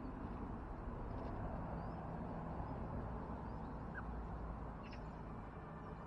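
Steady outdoor background noise in a garden, with a few faint, brief bird calls.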